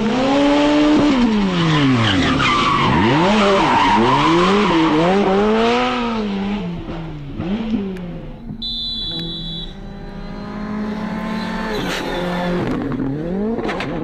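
Rally car engines revving hard past at speed, the pitch climbing and dropping again and again with throttle lifts and gear changes. The running is loudest over the first half and steadier and lower near the end.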